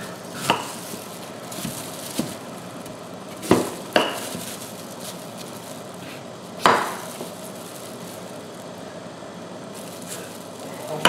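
Knife chopping butternut squash on a wooden cutting board: about six separate knocks spread over several seconds, the loudest about two-thirds of the way through, over a steady low hiss.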